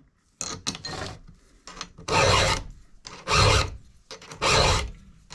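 Round file rasping across a cutter tooth of a Husqvarna 372XP chainsaw chain by hand: a few light clicks, then three even strokes about a second apart.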